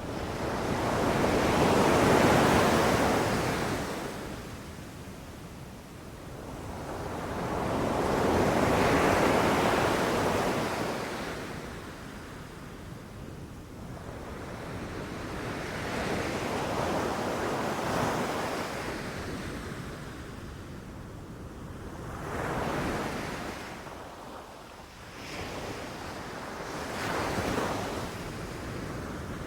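Ocean waves breaking and washing up a beach in slow surges, each swelling and fading over several seconds, the two largest early on and smaller, quicker ones near the end, with some wind noise.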